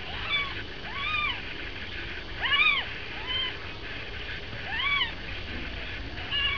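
Newborn kittens mewing: about six short, high-pitched mews that rise and fall, scattered through a few seconds, with the loudest in the middle.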